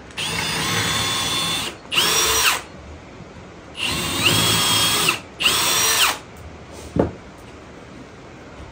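Cordless drill running in four short bursts, each spinning up with a rising whine, as pilot holes are drilled and screws driven into wooden floorboards. A single sharp knock follows about seven seconds in.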